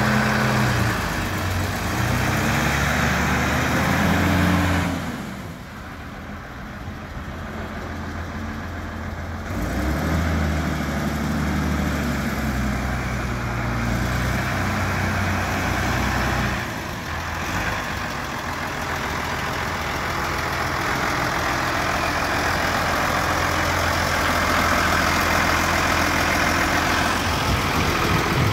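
2006 Valtra T140 tractor's diesel engine running while the tractor is driven, its pitch rising and falling and the sound dropping quieter for a few seconds about five seconds in. From about seventeen seconds on it runs steadily at idle.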